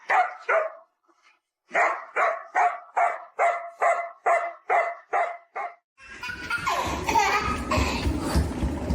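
A dog barking in a steady run of about three barks a second, after two barks at the very start. About six seconds in, the barking gives way to a steady noisy background with a low rumble.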